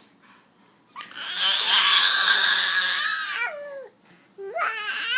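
Baby vocalizing: a long, loud, strained cry starting about a second in that trails off in wavering pitch, then a shorter rising squeal near the end.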